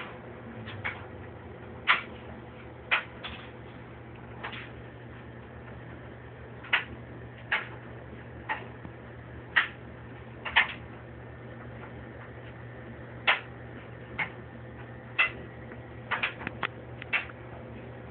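Sharp, brief clicks at irregular intervals, roughly one a second and bunched closer together near the end, over a steady low hum.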